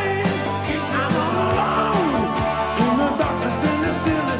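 A 1980s rock band playing a full arrangement, with a lead melody that slides up and down in pitch over the sustained band sound.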